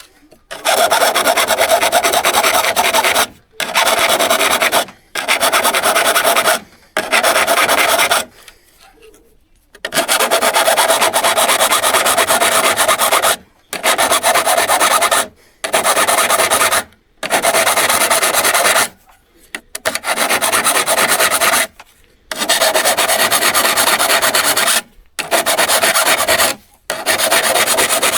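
Steel hand saw blade being scraped by hand with an abrasive tool: repeated rasping strokes of two to three seconds each with short breaks between them, and a longer pause about eight seconds in.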